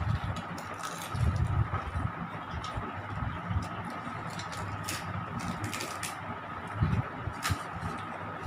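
People eating pani puri fast from steel bowls: scattered short crisp clicks and clinks of the puri shells and steel dishes, over a steady faint hum.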